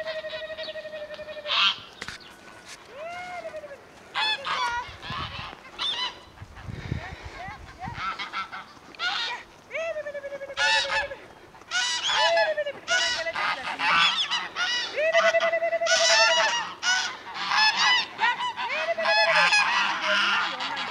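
A flock of domestic Kars geese honking. Many overlapping calls mix a few long, drawn-out honks with shorter ones, and they come thicker and busier in the second half.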